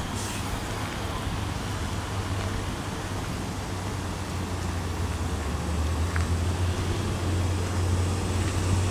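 Steady downtown road traffic noise with a low engine hum that grows somewhat louder about halfway through.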